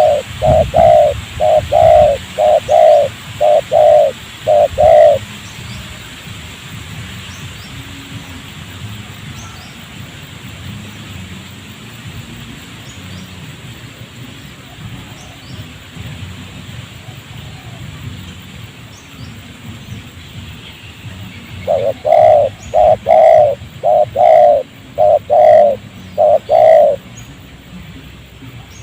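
Spotted dove (tekukur) cooing: a run of about ten short, rhythmic coos, then a long pause and a second run of about nine coos near the end. Faint high chirps of smaller birds sound in the background.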